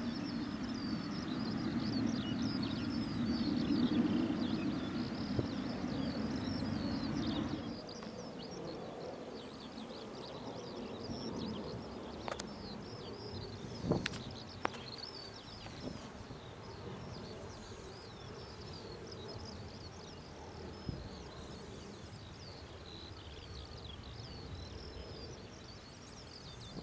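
Boeing 777-300ER's GE90 jet engines making a low rumble as the airliner rolls out along the runway after touchdown. The rumble stops abruptly about seven seconds in, leaving a steady high chirping in the background and a few sharp clicks.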